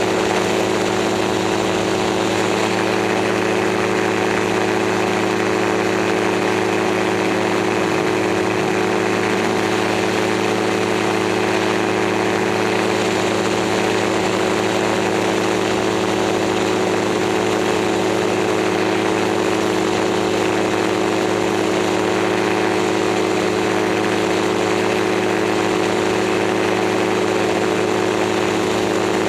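Gyroplane engine running at a steady cruise power in flight: an even drone that holds pitch throughout, with the rush of air past the aircraft.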